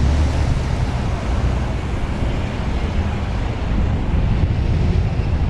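Twin-engine piston propeller plane at take-off power, a steady low engine-and-propeller drone as it rolls away down the runway.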